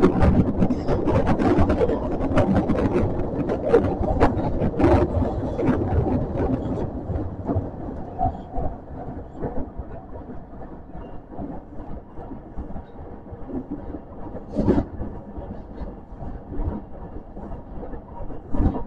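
Osaka Metro Midosuji Line subway train running through a tunnel, heard from inside the car: wheels rattling and clicking on the rails. It is louder and busier with clicks for about the first six seconds, then settles to a quieter steady rumble with an occasional sharp click, a strong one about fifteen seconds in.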